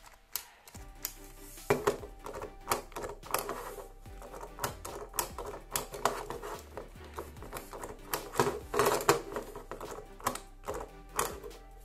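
Hard plastic toy figure being handled, its parts clicking and knocking and tapping on a tabletop in a quick, irregular clatter, over quiet background music.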